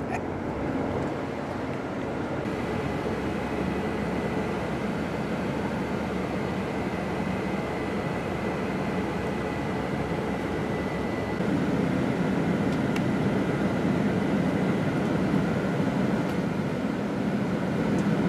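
Steady engine and road noise of a commuter express bus heard inside the passenger cabin as it drives through a tunnel. A faint, steady high whine runs for several seconds early on, and the noise grows louder about two-thirds of the way through.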